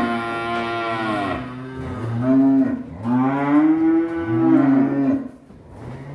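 Cattle mooing: a long call fading out about a second in, a short moo about two seconds in, then another long moo from about three to five seconds.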